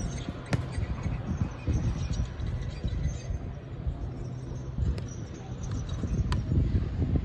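A soccer ball being punted up and trapped on the laces of a boot: a handful of sharp, spaced thuds of ball on foot, two close together at the start and two more a little over a second apart near the end, over a low, uneven rumble.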